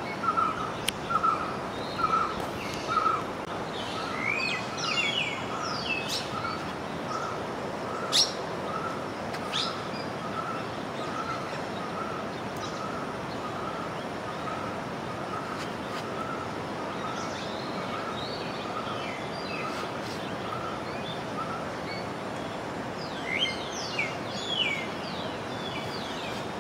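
Birds calling: one repeats a single short note about twice a second and stops near the end, while others give quick high chirps in the first half and again near the end, over a steady background hiss.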